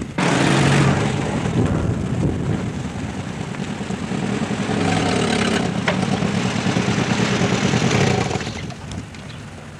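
A motor vehicle engine running close by, a steady noisy rumble that fades out about eight and a half seconds in.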